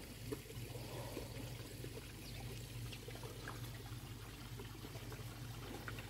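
Water pouring and trickling steadily into a koi pond, faint, over a low steady hum.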